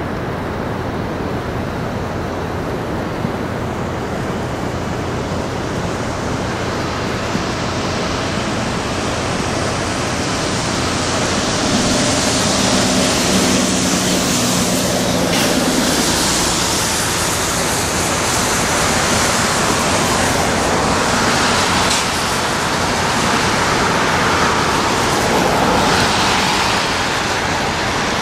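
Steady rushing outdoor noise that grows louder and brighter about twelve seconds in, with a low steady hum beneath it.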